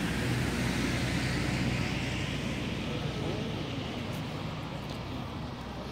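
Motor vehicle rumble, a low engine hum with road hiss, slowly fading away.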